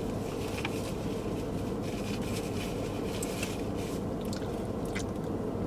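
Steady low rumble of background noise with faint, scattered small clicks.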